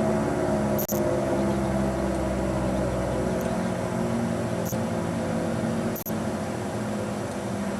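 Allertor outdoor warning siren sounding its steady alert tone, a loud held multi-note wail that slowly eases in level. The sound cuts out briefly twice: the recording's audio dropping out.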